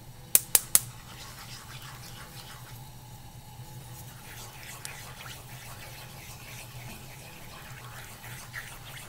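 Mushroom and white wine sauce boiling in a pan as it is stirred, with small wet pops and scrapes over a steady hum. Three quick sharp taps come just after the start.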